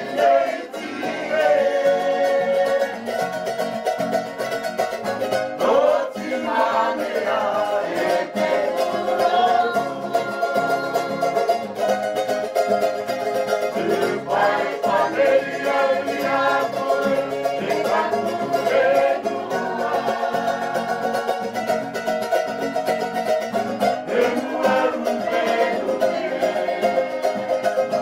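Background music led by plucked string instruments, with a voice singing over it.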